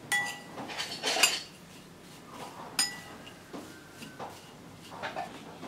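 Metal spoon stirring dry instant rice porridge flakes in a ceramic bowl, scraping through the flakes and clinking against the bowl, with two ringing clinks, one just after the start and one near three seconds in.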